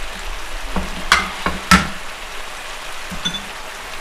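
Thick sauce sizzling in a frying pan while it is stirred with a spatula, with four quick knocks against the pan in the first two seconds.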